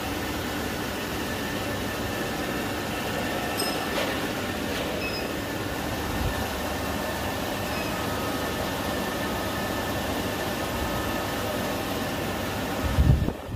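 Steady mechanical hum and whir of a CNC laser cutting machine running, with a few brief faint high tones. A loud low thump near the end.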